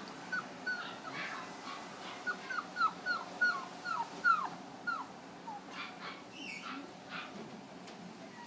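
West Highland white terrier puppy whimpering: a quick run of about a dozen short, high yelps, each dropping in pitch, that dies away about five seconds in.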